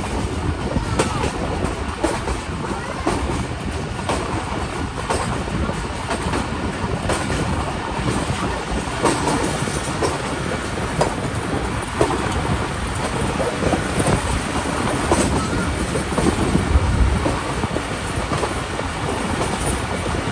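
Passenger train running along the track, heard from beside an open window or door of a coach: a steady rumble with repeated clicks of the wheels over rail joints.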